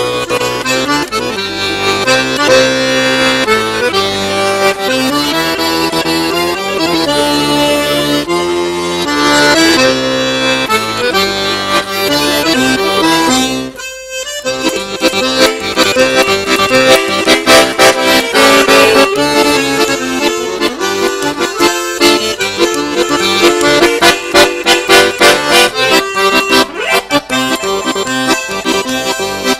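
Solo piano accordion playing: held chords and melody at first, a brief stop about halfway, then fast, short staccato notes and chords.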